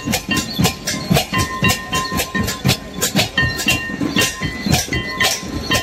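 Santali barrel drums (tumdak) beaten in a fast, even rhythm for a lagne dance, about four or five strokes a second, with a steady high tone running underneath.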